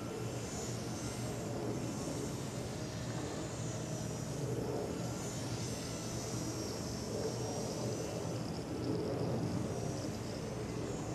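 Faint high-pitched whine of a micro RC model airplane's small electric motor and propeller, run directly from two solar cells with no battery, wavering slowly in pitch, over a steady low background rumble.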